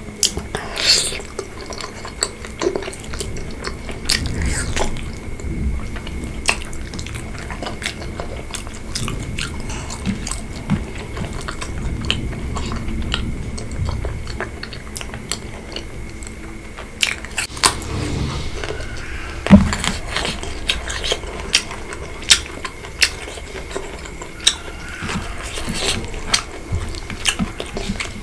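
A person chewing and biting into pork curry, bamboo shoots and rice, with wet mouth sounds and many scattered sharp clicks and taps. One louder click comes about two-thirds of the way through.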